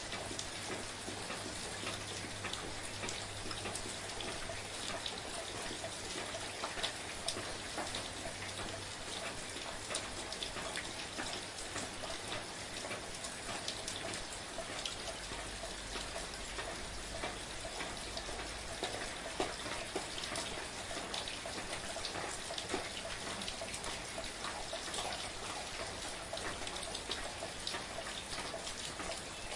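Steady soft rain, a constant hiss with many individual raindrops pattering close by.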